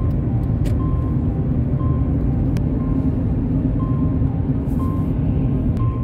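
Steady low road and engine rumble heard from inside a moving car, with a short high beep repeating about once a second.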